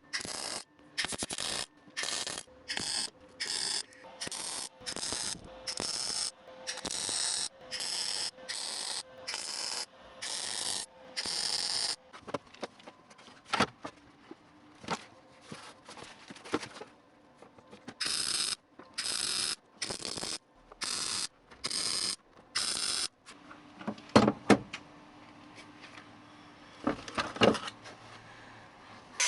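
MIG welder laying a quick series of spot (plug) welds on car-body sheet steel, each a short crackling burst, about one to two a second, in two runs with a pause between. A few sharp knocks near the end.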